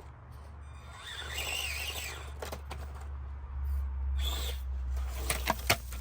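Axial SCX24 Deadbolt mini RC crawler's small electric motor and gears whirring in bursts as it tries to climb a steep slab of broken concrete. Several sharp clacks come near the end as the truck loses traction and slips back.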